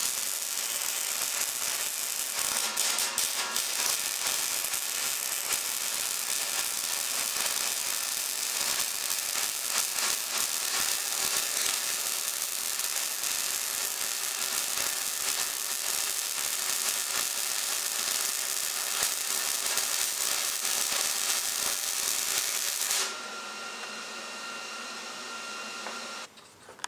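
Millermatic 211 MIG welder running a continuous crackling arc with .030 wire and 75/25 argon-CO2 shielding gas on mild steel, a beginner's first bead during which the wire got out ahead of him. About 23 seconds in the arc stops, leaving a quieter steady hum.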